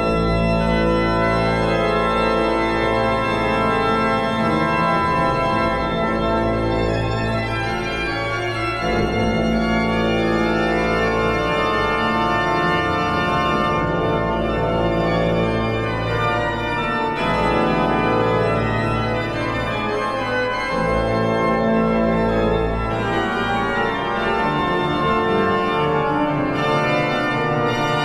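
Hinsz pipe organ playing the opening of a prelude: loud sustained chords over deep pedal bass notes, entering at full strength at once.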